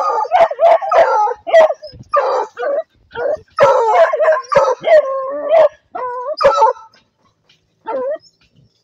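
A pack of hunting hounds barking and baying in quick, overlapping calls at a paca cornered in its dug-out burrow, with one longer held call in the middle. The calls break off for about a second near the end before one short call.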